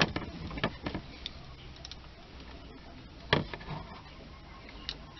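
A few short, sharp clicks and taps from handling an analog multimeter and its test probes on a CRT TV's circuit board, the loudest about three and a half seconds in, over a faint steady low hum.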